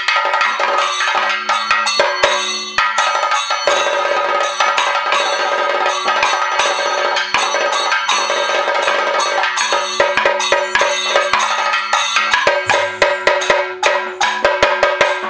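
Chenda, the Kerala cylindrical drum, beaten with sticks in fast, dense rolls accompanying Kathakali dance, with small hand cymbals keeping time, and a few brief breaks in the rolls.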